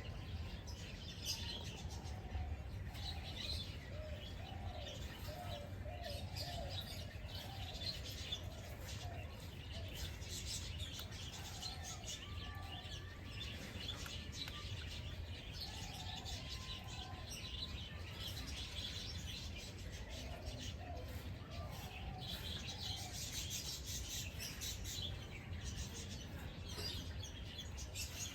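Several birds chirping and calling together: many quick high chirps over short, wavering lower calls, with a steady low rumble beneath.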